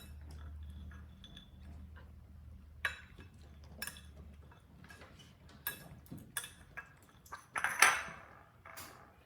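A plate being handled and moved about, with scattered light clinks and clatters and a louder clatter near the end. A low hum runs under the first half.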